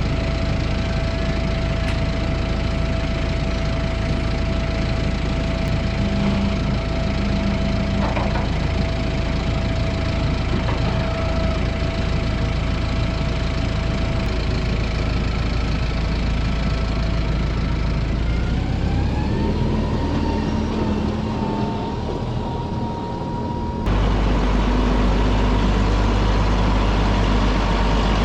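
Tractor engine running steadily, then rising in speed about two-thirds of the way through and holding there. Near the end the sound switches abruptly to a louder, deeper engine drone.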